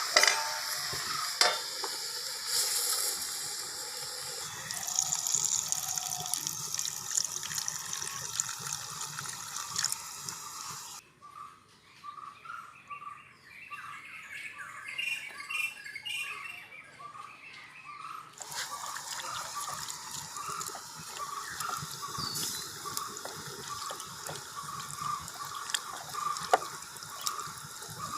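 Running water splashing, in a few cut-together stretches, with birds chirping in the background.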